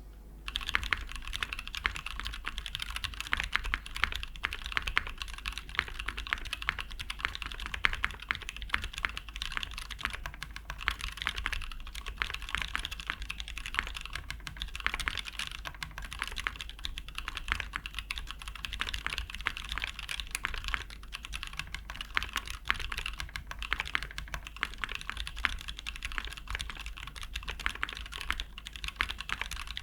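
Continuous typing on an MKC65 65% custom mechanical keyboard with an aluminium case and plate, no foam, lubed SP-Star Duck switches and GMK double-shot ABS keycaps: a steady, dense stream of key clacks starting about half a second in.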